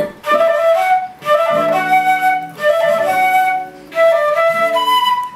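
Silver concert flute playing a melody in short phrases broken by quick breaths, with lower sustained notes from a nylon-string classical guitar underneath from about a second and a half in.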